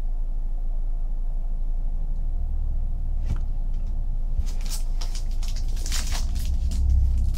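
Foil trading-card pack wrapper crinkling and rustling as it is picked up and handled, starting about halfway through, over a steady low hum.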